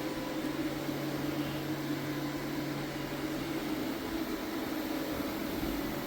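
Floor UV curing machine running steadily, a fan-like hum with a low tone underneath as its lamp cures a freshly applied floor finish coat.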